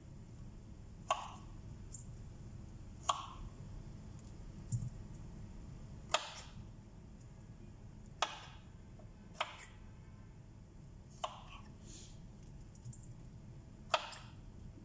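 A knife cutting broccoli florets on a plastic cutting board: about eight sharp knocks of the blade on the board, one every second or two, over a low steady hum.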